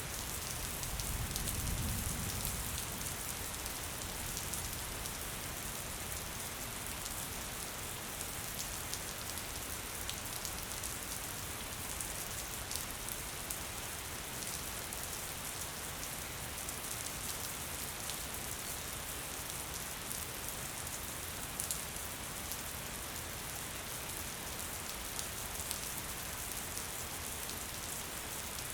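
Gentle steady rain falling, an even hiss with many small drops ticking. A brief low rumble sounds under it in the first couple of seconds.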